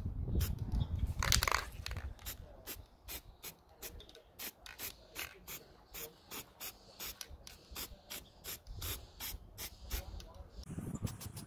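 Aerosol spray can of primer sprayed in many short bursts, roughly three a second, after one longer burst about a second in.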